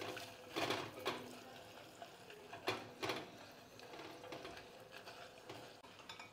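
A slotted spoon stirring dried chiles de árbol in hot oil in a glass saucepan: a few short scraping, clinking strokes, loudest about half a second in and again about three seconds in.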